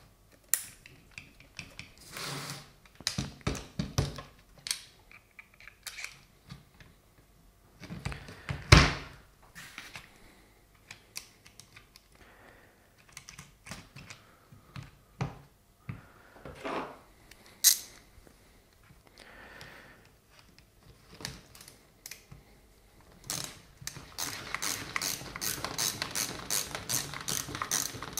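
Scattered clunks and knocks as the Wabco air suspension compressor is handled and set back into its mounting frame, the loudest about nine seconds in. Near the end a socket ratchet starts clicking steadily, about four to five clicks a second, as a bolt is turned.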